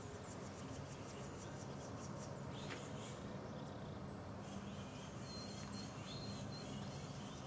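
Woodland ambience with small birds calling. There is a quick run of faint high ticks in the first couple of seconds, a short downward-sliding chirp about three seconds in, and thin high whistled notes near the end, over a low steady rumble.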